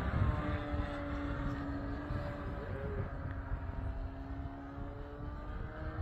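Radio-controlled wooden Phenix Models Spitfire flying overhead: a steady motor and propeller drone whose pitch and loudness slowly fall as the plane moves away.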